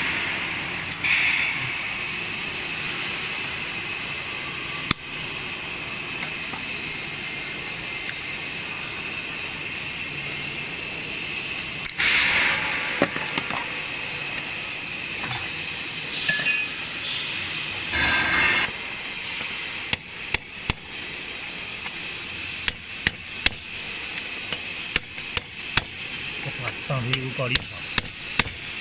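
Steel hand tools clinking and scraping on a pellet mill roller shell and its bearing as the roller assembly is taken apart. In the last third the clicks turn into a run of sharp, irregular metal taps, a steel bar being struck to drive the bearing out of the roller shell.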